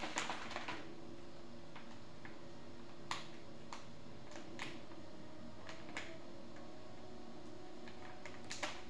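Scattered light clicks and taps as packets are handled on a kitchen counter, about eight in all, the sharpest about three and six seconds in, over a faint steady hum.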